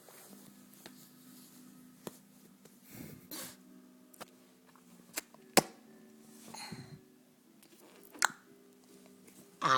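A series of short, sharp hiccups at uneven intervals, the loudest about five and a half seconds in, over a steady low hum.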